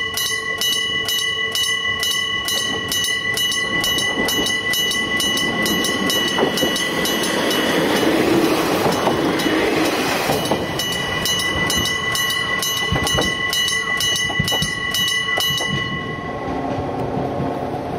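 Electric gong level-crossing bell striking in a fast, even rhythm, about two to three strikes a second, as a diesel railcar runs past, loudest around the middle. The bell stops about two seconds before the end.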